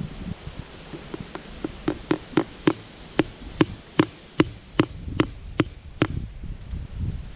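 Hammer driving a fencing staple by hand into a hardwood fence post: a rapid run of sharp ringing strikes, about three a second, which stops about six seconds in.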